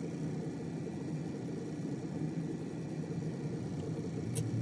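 Steady low mechanical hum, with one short faint click near the end.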